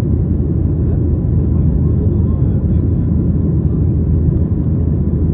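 Steady low rumble of an airplane in flight, heard from inside the cabin: the constant engine and airflow noise.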